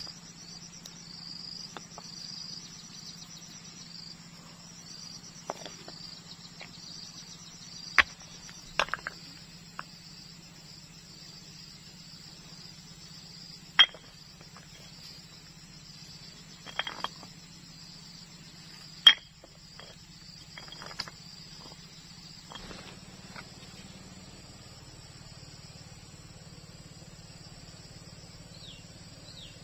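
Flat stones knocking and clacking against one another as they are picked up and set in place: several sharp, separate knocks. Behind them runs a steady chorus of chirping insects.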